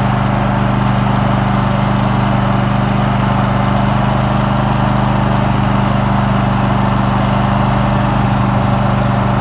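Riding lawn mower's engine running at a steady, unchanging speed as the mower is driven along.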